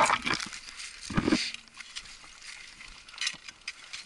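Deep snow crunching and scraping as a climber plunges gloved hands into it and shifts through it, along with jacket rustle. The loudest scuffs come at the start and about a second in, then fainter ticks and scrapes.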